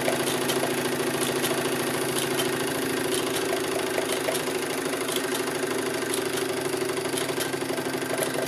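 Vintage Doll tinplate live-steam locomobile running steadily, a fast even mechanical rhythm over a steady hum, with scattered sharp ticks.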